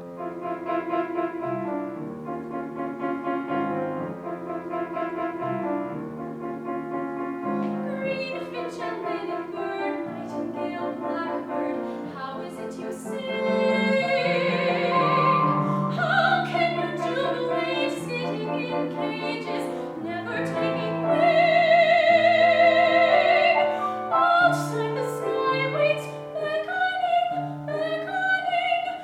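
A classical soprano voice singing with piano accompaniment. After several seconds of piano alone, the voice enters and sings long notes with a wide vibrato.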